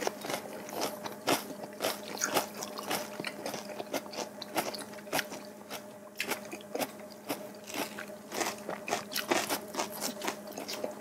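Close-miked crunching and chewing: crisp, irregular bites of a pickled-radish wrap with smoked duck and fresh vegetables, with small clicks and scrapes between bites.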